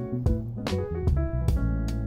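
Instrumental background music: plucked guitar notes over a low bass line, with a new note struck every few tenths of a second.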